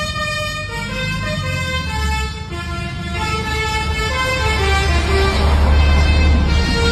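Telolet basuri horn, a bus or truck horn that plays tunes, sounding a melody of short stepped notes over a low engine rumble that grows louder in the second half.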